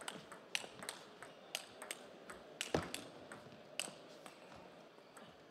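Table tennis rally: the celluloid ball clicking sharply off the rackets and the table in an irregular string of hits, about one every half second to second, the loudest about three seconds in.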